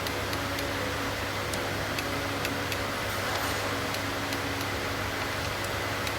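Steady mechanical hum, like a fan or motor running, with a scattering of light, sharp clicks.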